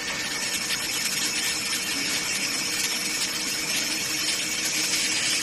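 Electric pallet stacker's hydraulic pump motor running steadily: an even hum under a strong hiss.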